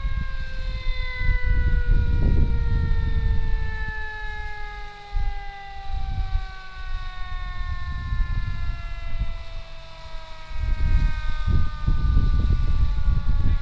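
An emergency siren wailing: one long tone with several overtones that falls slowly in pitch over about ten seconds and fades out. A heavy low rumble runs underneath.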